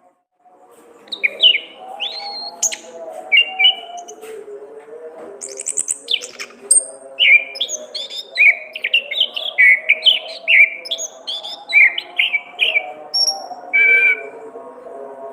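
Orange-headed thrush singing a fast, varied song of short whistled notes that sweep up and down, starting about a second in after a brief silence.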